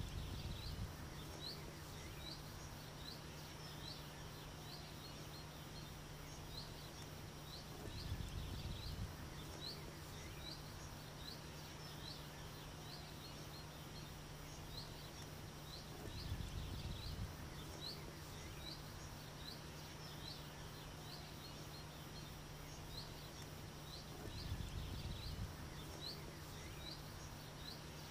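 Faint summer countryside ambience: a steady run of short high chirps, about two a second, over a thin high hum, with a low rumble swelling about every eight seconds.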